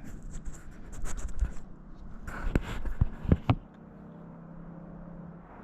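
Plastic syringe of a windshield repair kit being pushed into the resin pedestal and its plunger drawn up, with scratchy rubbing and several sharp clicks between about two and a half and three and a half seconds in. A faint steady hum follows in the last two seconds.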